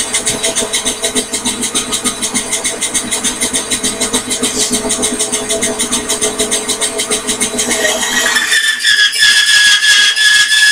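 Microlux variable-speed bandsaw running, with a fast, even pulsing beat. About eight seconds in, a high whine rises and then holds steady.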